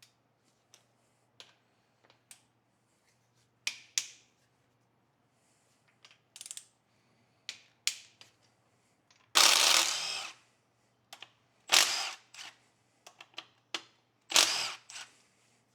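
Hand tools working on an engine: scattered clicks and metal knocks, with three louder noisy sounds about a second long, about halfway through and near the end.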